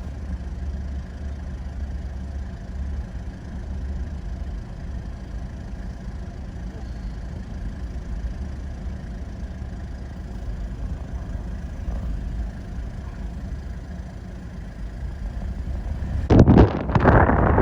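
Steady low rumble of a vehicle engine running. About 16 seconds in, wind suddenly buffets the microphone loudly.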